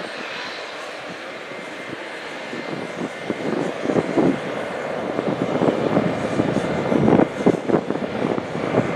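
Jet engine noise from a Bombardier CRJ regional jet's two rear-mounted GE CF34 turbofans as it taxis past. A steady hiss and whine grows louder about three seconds in and turns rough and crackling as the exhaust passes, easing off at the very end.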